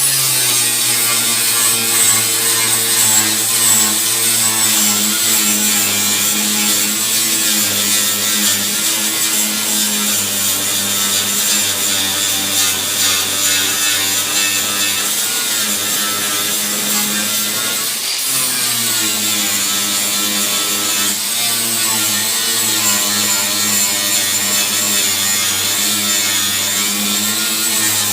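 Grinder with a 60-grit flap wheel grinding down MIG welds on a steel patch panel: a steady high whine with the rasp of abrasive on metal. About 18 seconds in the load eases for a moment, the whine jumps higher, then sinks back as the wheel bites again.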